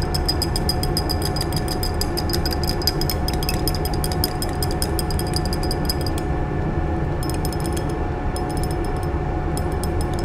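Glass stirring rod clicking rapidly against the inside of a glass test tube while a phenol–water mixture is stirred: many light clicks a second for about six seconds, then in short bursts. A steady fan hum runs underneath.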